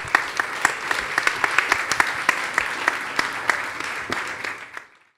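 Audience applauding: many overlapping claps that die away shortly before the end.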